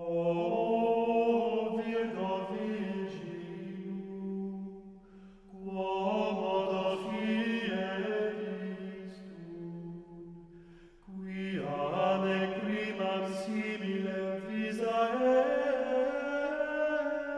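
Chanting voices holding long low notes, in three slow phrases with short breaks about five and eleven seconds in.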